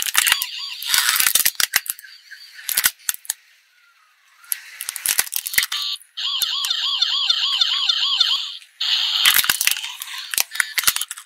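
Hard plastic cracking and snapping as a car tyre rolls onto a toy police car, in two bursts, with the toy's electronic siren warbling between them and again near the end.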